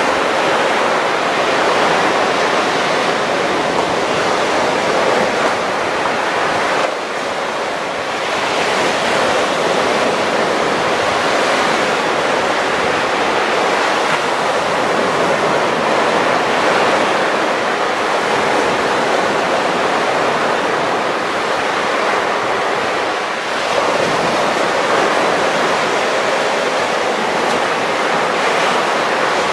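Baltic Sea surf: waves breaking and washing up a sandy beach in a continuous rush, easing briefly twice.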